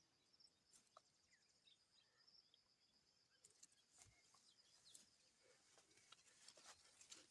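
Near silence: faint outdoor farm ambience with a steady high insect-like hum and a few faint bird chirps.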